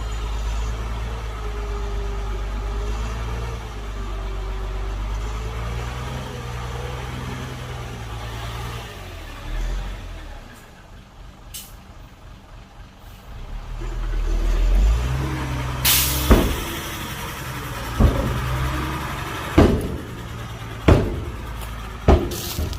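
Heavy diesel earthmoving machinery running, with a wavering engine note for the first nine seconds. It fades for a few seconds and then swells again. After that come about six sharp metallic bangs spread over the last seven seconds.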